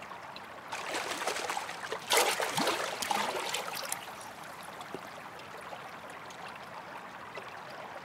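Water splashing as Korean piscivorous chub leap from the surface and fall back in, loudest a little after two seconds in, then fading to a faint steady trickle of water.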